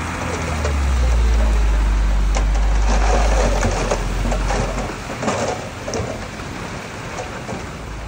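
Heavy diesel earthmoving machinery working, a deep rumble that eases about five seconds in, over a steady gritty crackle of stone and gravel being pushed and tumbled.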